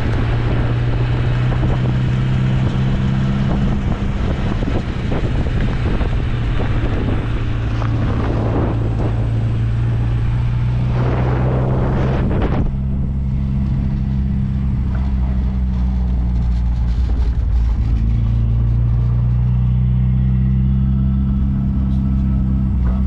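MG Midget driving on the road, its engine running steadily at cruising speed under heavy wind and road noise. About halfway through the wind noise drops away suddenly, leaving the engine's low hum clearer.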